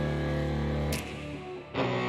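Background music with guitar: held chords that drop back about a second in, with a new chord coming in near the end.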